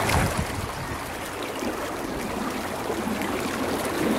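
Swollen river in flood rushing past at a fast pace: a steady wash of flowing water.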